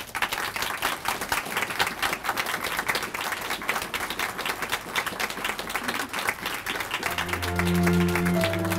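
Audience applause: many hands clapping, starting suddenly. About seven seconds in, music with sustained low notes comes in under the clapping.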